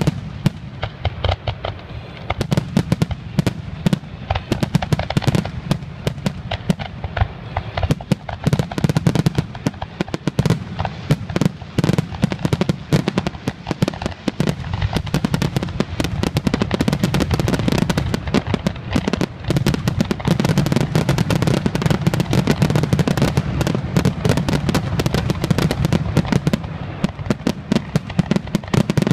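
Fireworks display: aerial shells bursting in rapid, overlapping succession, many sharp bangs and crackles a second, getting denser after the first couple of seconds.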